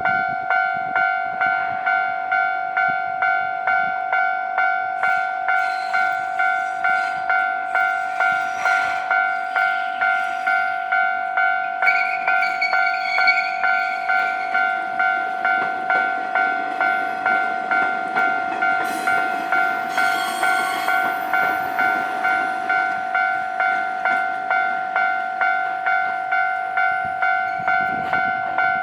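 Japanese level-crossing warning bell, an electronic ding repeating about twice a second without pause. A train passes over the crossing meanwhile: its running noise swells through the middle, with a brief high wheel squeal about twelve seconds in.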